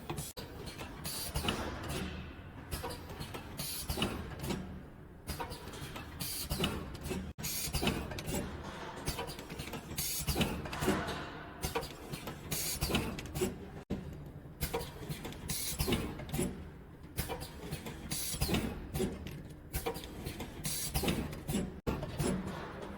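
Automatic auger-screw powder packaging machine running, a steady low hum under repeated clicks and knocks from its metering and packing cycle.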